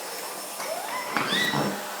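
Vacuum cleaner running steadily in the background. About halfway in, a baby makes a short squeal that rises in pitch, with a sharp click in the middle of it.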